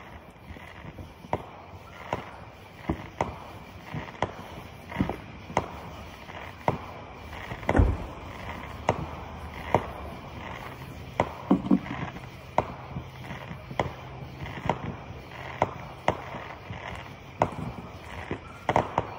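Fireworks going off: a string of sharp pops and cracks, about one or two a second at uneven spacing, with one deeper, louder boom about eight seconds in.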